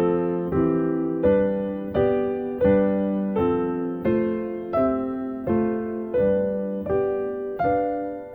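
Piano playing four-note drop 2 voiced chords in C major, one chord struck about every 0.7 seconds in an even rhythm, each left to ring and fade before the next, moving up the scale along a broken-triad melodic line.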